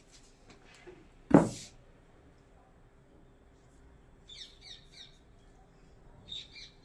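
A single sharp thump about a second in, then short, high bird chirps in two brief bursts later on, over a faint steady hum.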